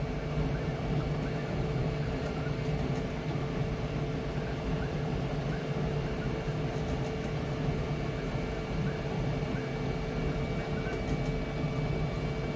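Flashforge Adventurer 5M Pro 3D printer running a fast print: a steady motor and fan hum with short whines repeating about once a second as the print head moves.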